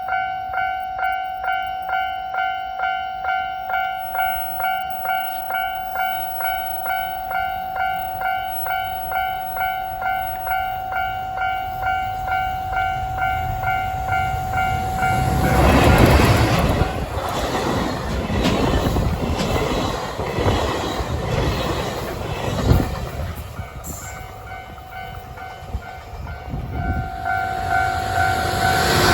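Level-crossing warning bell ringing at about two strikes a second. About halfway through, a train passes the crossing at speed, its loud rush over the rails drowning out the bell. The bell is heard again near the end.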